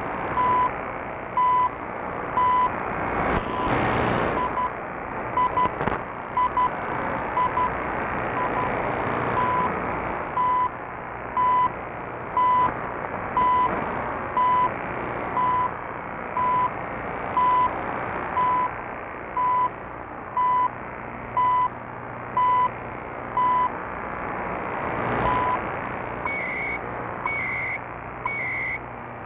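CHU shortwave time signal received over hissing, fading radio static: a short steady beep marks each second. Near the end, higher-pitched data tones come in, about one burst a second.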